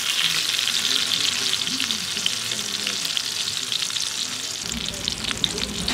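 Ribeye steak sizzling hard in a cast iron skillet of bubbling fat beside diced bacon: a steady, dense frying hiss full of fine crackles. It is the sound of a hot sear browning the steak's outside.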